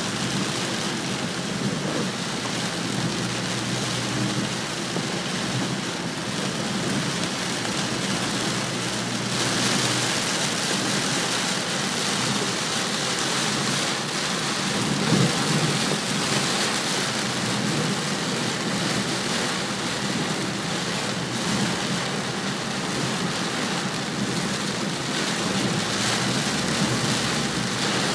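Heavy rain pelting a moving car's roof and windshield, heard from inside the car, over the low steady rumble of tyres on a wet road. The rain gets louder and hissier about ten seconds in.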